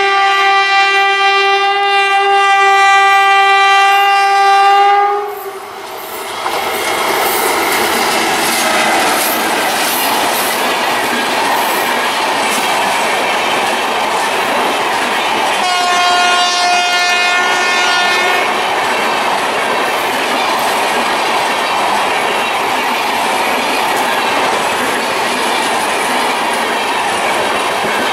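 An Indian Railways WAM-4 electric locomotive sounds its air horn in one long blast of about five seconds as it approaches. Then the express's LHB coaches rush past with the wheels clicking over the rail joints. About halfway through, a second, higher-pitched horn sounds briefly over the passing train.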